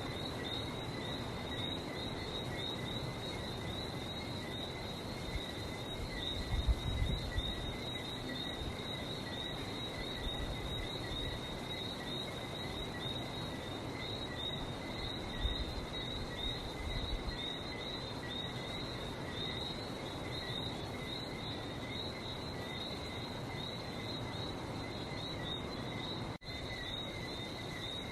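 A night chorus of many Lesser Antillean whistling frogs, overlapping short high whistled chirps repeating without pause, over a steady low rumble.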